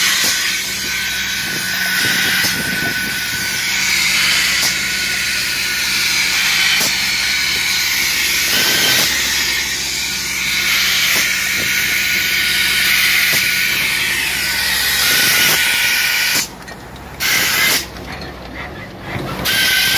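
Road-striping truck's paint spray guns hissing steadily as they lay a yellow traffic line, over the steady low hum of the truck. The hiss drops out briefly twice near the end.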